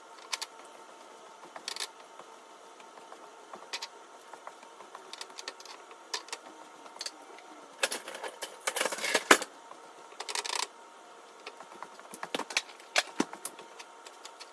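Kitchen handling noises: scattered clicks and taps, with a louder scraping, rustling stretch about eight seconds in and a shorter one just after ten seconds, over a faint steady hum.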